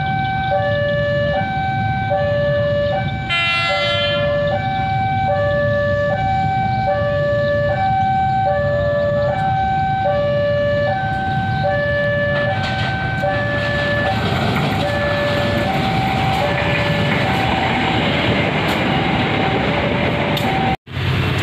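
A level-crossing warning alarm sounds two alternating tones over and over, each held under a second. After about twelve seconds the alarm fades under the growing noise of the approaching train, which is loud as it passes near the end.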